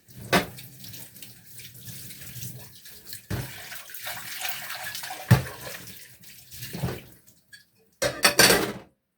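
Kitchen tap running into a sink during washing-up, with four sharp knocks of items against the sink. Near the end there is a louder burst of noise, about a second long.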